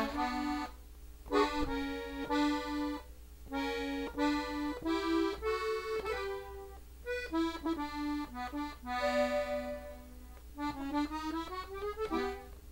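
Gabbanelli diatonic button accordion tuned in E, playing a norteño melody in D at slow tutorial tempo. The phrases are separated by short pauses, and a quick rising run of notes comes near the end.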